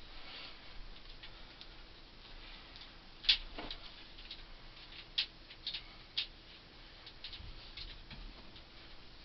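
Scattered light clicks and taps, the sharpest about three seconds in, from gloved hands working roofing tar onto copper ground-loop tubing.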